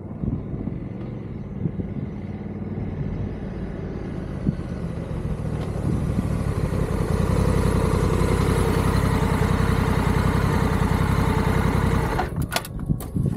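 Honda Africa Twin's parallel-twin engine, with wind rush, growing louder as the motorcycle picks up speed, then running steady and loud. About twelve seconds in, the engine and wind sound cut out abruptly and give way to a string of sharp knocks and clatter: the camera snapping off its mount and tumbling along the road.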